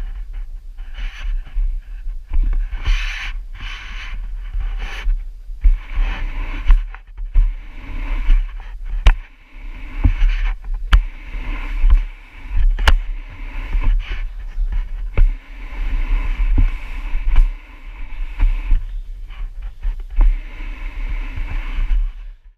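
Irregular rubbing and scraping strokes over a low rumble, with several sharp clicks in the middle stretch. The strokes come in short bouts of a second or so.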